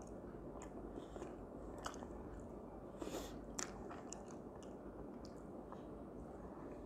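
A person chewing food with the mouth closed: faint wet mouth sounds and scattered short clicks and smacks, with a few louder clicks about three seconds in.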